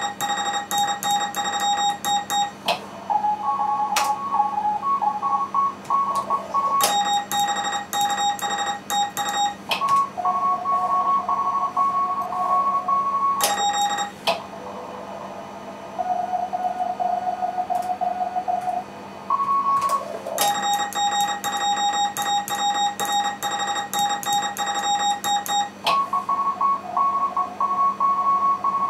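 Morse code (CW) on a ham radio contest station: runs of keyed tones at one steady pitch, with sharp clicks at the start and end of each run, alternate with other keyed Morse signals at higher and lower pitches from the receiver, in quick exchanges. About a second of band hiss comes in the middle.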